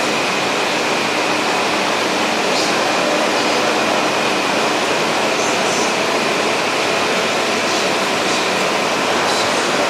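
Steady loud fan noise from cooling equipment, with a faint high whine held throughout and a few faint ticks.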